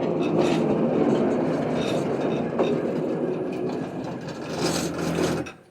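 Norwood portable sawmill running at full speed, its engine holding a steady pitch under the blade's noise, then cutting off suddenly near the end.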